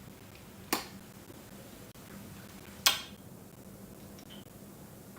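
Two sharp clicks about two seconds apart, the second louder, over faint room hiss.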